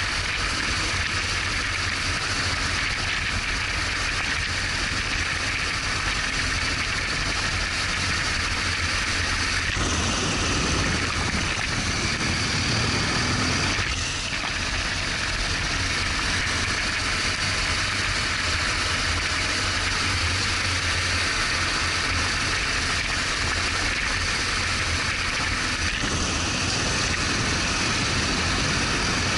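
BMW R1200GS Adventure's boxer-twin engine running steadily under way, with a constant broad hiss over it.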